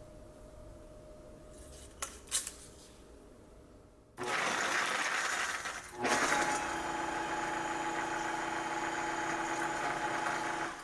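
Vitamix high-powered blender motor running, blending a red soup base. A loud rushing whir starts about four seconds in, dips briefly, then runs on steady with a hum in it and cuts off near the end. A couple of light clicks come just before it starts.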